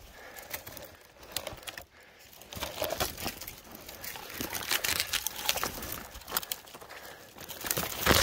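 Crunching and rustling of a person moving on foot through snow and bare brush, irregular crackles throughout, loudest near the end.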